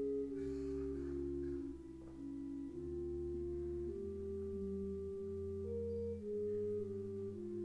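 Slow, soft instrumental music: mellow held notes changing pitch every second or so over sustained low bass notes.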